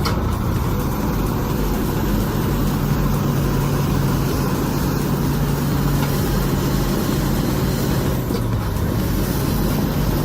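A heavy vehicle's engine running steadily with a constant low hum.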